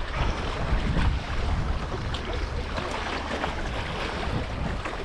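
Wind rumbling on the microphone over lapping lake water.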